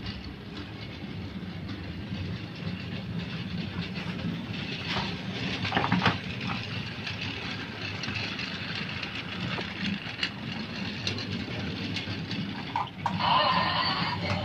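Rail King battery-operated toy train running on plastic track: a steady small-motor hum with the wheels clicking over the track joints. Near the end, tinny electronic toy music starts up.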